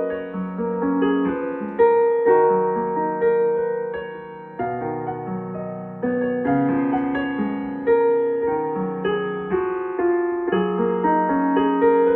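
Background solo piano music: slow melody notes over held chords, each note struck and then fading.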